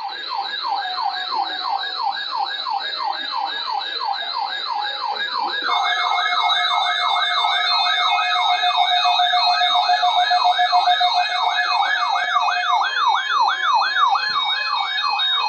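Electronic siren in a rapid up-and-down wail, about three sweeps a second. A steady tone and a second sweeping layer join about six seconds in.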